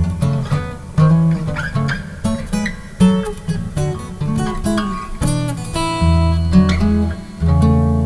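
Solo acoustic guitar played fingerstyle: a ragtime piece, with low bass notes under a quick plucked melody.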